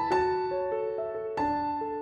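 Slow, gentle piano music: single notes and chords that ring and fade, a new note roughly every half second.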